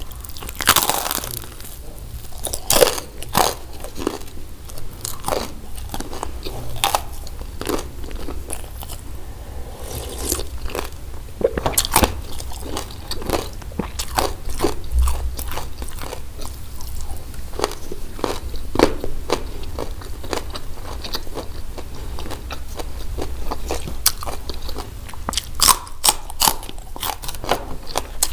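Bites and chewing of crispy hawawshi, Egyptian flatbread stuffed with spiced minced meat and baked, the crust cracking in sharp crunches between softer chewing, with a cluster of crunches near the end.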